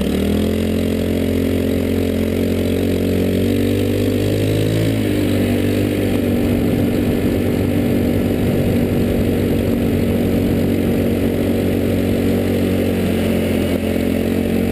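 Go-kart engine running hard, close to the microphone, picking up revs right at the start and holding a steady note, with a brief change in pitch about five seconds in.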